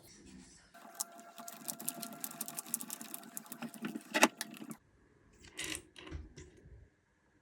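A small motor running with rapid, dense clicking for about four seconds, cutting off suddenly, followed by a few separate knocks.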